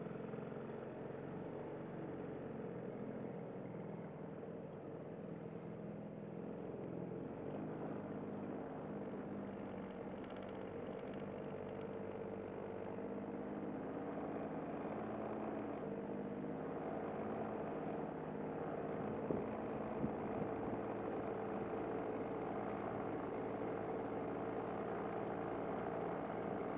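Tohatsu 5 hp outboard motor running steadily, pushing a small boat along under way, with two brief knocks about three-quarters of the way through.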